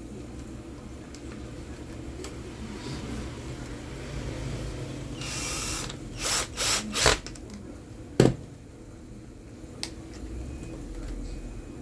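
Cordless drill-driver driving screws into a hand mixer's housing: one run of about a second, then three short bursts of the motor. A sharp knock follows soon after, the loudest sound.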